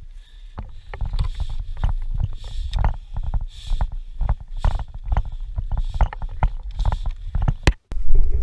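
Movement noise on a body-worn camera as the wearer advances: irregular thuds of footsteps and rustling of gear, with wind on the microphone. The sound cuts out briefly near the end.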